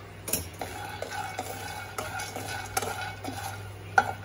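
Peanuts being stirred with a spatula in a nonstick pan as they roast, giving an irregular rattling and scraping with a sharp knock about four seconds in.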